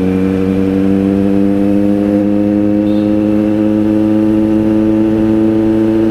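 Kawasaki Z900 inline-four engine with an aftermarket exhaust, heard on the move from the rider's position at a steady cruise, its note climbing slightly as it gains a little speed.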